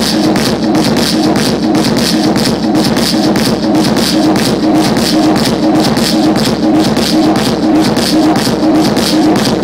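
Loud live electronic music from a Roland MC-series groovebox and mixer: a fast, steady beat of noisy hits over a repeating low pattern.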